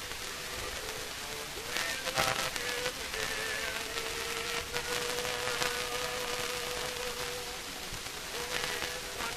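Old 78 rpm Pathé disc playing: a long held note comes in about two seconds in, over heavy crackle and hiss from the record surface.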